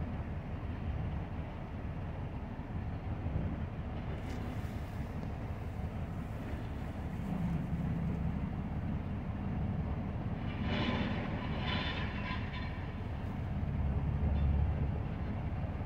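Steady low diesel rumble of a Volvo crawler excavator working scrap metal with its hydraulic jaw attachment, with scrap clattering and scraping; a louder burst of metallic clanking comes a little past the middle.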